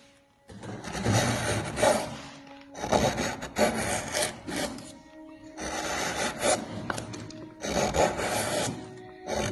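A wood chisel paring and shaving wood in long scraping strokes, about five of them, each lasting a second or two with short breaks between. Soft sustained musical notes sound underneath.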